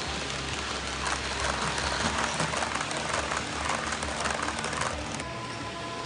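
HO-scale model Shinkansen train running past on the track: a rapid, dense clatter of its wheels on the rails, loudest from about a second in, that stops suddenly about five seconds in.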